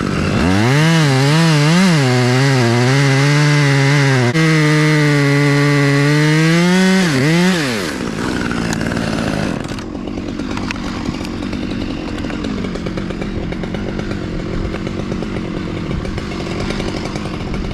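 Chainsaw cutting at high revs, its pitch wavering under load for about seven seconds before it drops off. A lower, steady engine noise carries on after it.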